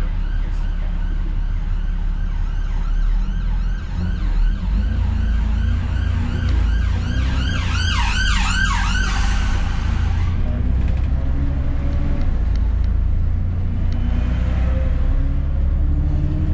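An emergency vehicle's siren yelping in quick rising-and-falling sweeps, loudest about eight seconds in and fading out a couple of seconds later. Under it is the steady low running of an Alexander Dennis Enviro400 double-decker bus engine.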